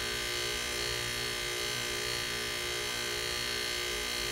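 Old dehumidifier compressor, rigged as a vacuum pump, running with a steady hum while it draws engine oil out of a lawnmower through a hose into a jar.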